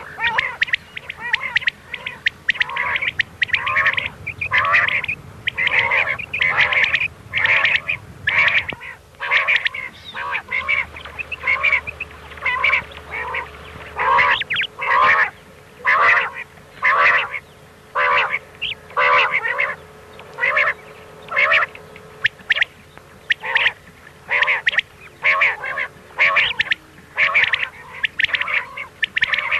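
Recorded common quail (batair) calls of the kind used to lure quail for hunting: short, sharp calls from several birds overlapping in rapid clusters, about one cluster a second, under a faint steady hum.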